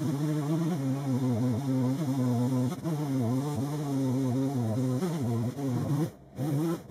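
Two-stroke chainsaw running at high revs, its engine note sagging and recovering again and again as it is loaded in the cut, then dropping away near the end.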